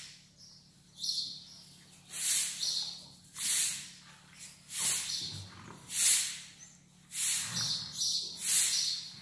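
Dog and puppy playing in loose hay: bursts of rustling straw and snuffling come about once a second.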